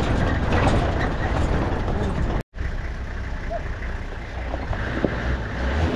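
Engine and road noise of a 4x4 safari vehicle driving over a rough dirt track, a steady loud rumble. It cuts out abruptly for a moment about halfway through, then carries on.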